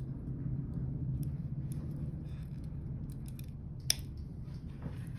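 Scissors snipping at a stretch-cord bracelet, a few light clicks with one sharper snip about four seconds in, over a steady low hum.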